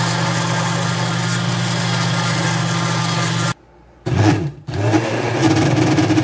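Electric blender motor running steadily as it blends chocolate cake batter. About three and a half seconds in, the sound cuts out for about half a second, then the motor starts again, its pitch shifting and dipping briefly before it runs on steadily.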